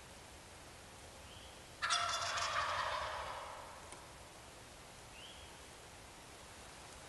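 A wild turkey gobbler gobbling once, about two seconds in, lasting about a second and a half.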